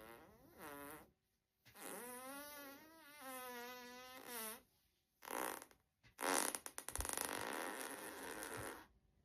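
A run of human farts: a long pitched one that wavers up and down, a short burst, then a long sputtering, rattling one.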